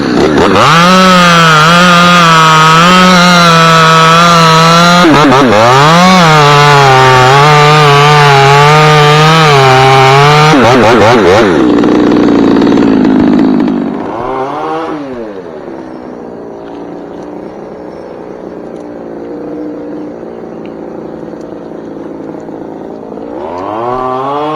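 Chainsaw held at full throttle for about ten seconds, its pitch wavering and briefly dipping about five seconds in, then dropping back to idle, with a short rev soon after and another near the end.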